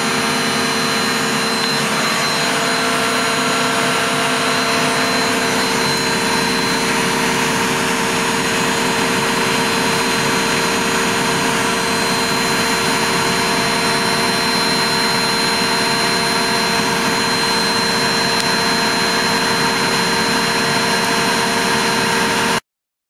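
Miele W 720 front-loading washing machine spinning its drum at a steady high speed: a constant motor whine with a rush of air and water. It cuts off suddenly near the end.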